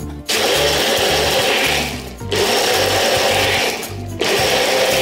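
Personal blender running in three pulses of about one and a half seconds each, with short pauses between them, as it blends a liquid mixture.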